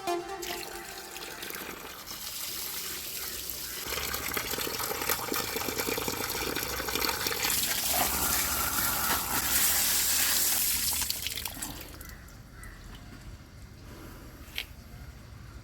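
Water running from a tap, building up and flowing at full force for several seconds, then easing off to a weaker flow about three-quarters of the way through. A single sharp click near the end.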